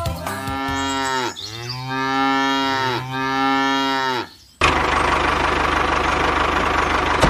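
A cow mooing in long, drawn-out calls for about four seconds. Then a tractor engine starts running steadily, beginning suddenly about four and a half seconds in.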